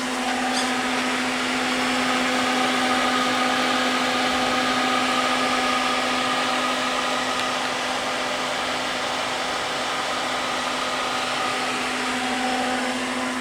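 Eldorado M75-1031 gun drilling machine powered up on 480 volts, giving a steady electric hum and whir with a constant low tone.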